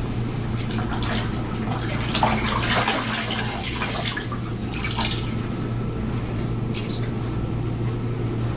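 Water splashing and dripping in a plastic bucket as a piece of canvas cloth is soaked and squeezed by hand, in irregular bursts that are busiest two to three seconds in. A steady low hum runs underneath.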